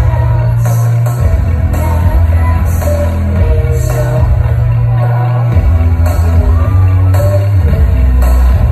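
Live band playing a song with deep bass notes that change every second or two, and a woman singing over it, heard loud from within the audience.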